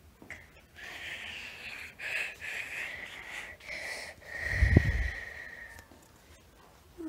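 Heavy, wheezy breathing in a string of uneven huffs, with a loud bump from the phone being handled about four and a half seconds in.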